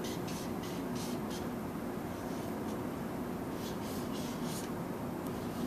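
A marker drawing on flip-chart paper in a series of short, scratchy strokes.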